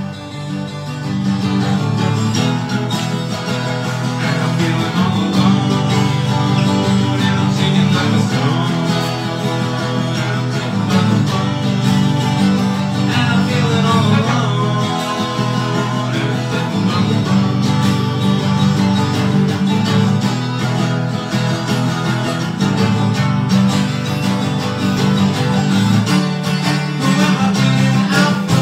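Live performance of a song on strummed acoustic guitar, getting louder about a second in as the playing gets going.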